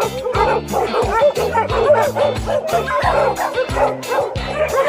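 A pack of dogs barking and yipping together in quick succession, over background music with a steady beat.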